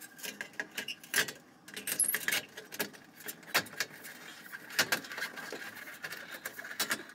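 Sheet-metal wiring cover of a fluorescent light fixture being pushed and fitted into place by hand: irregular metallic clicks, knocks, scrapes and rattles, with a faint steady high tone in the background from about two seconds in.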